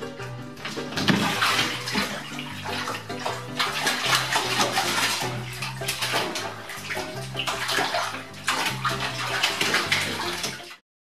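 A cat falling into a filled bathtub, its thrashing and scrambling making the water splash and slosh. The splashing starts about a second in and cuts off abruptly near the end, with background music throughout.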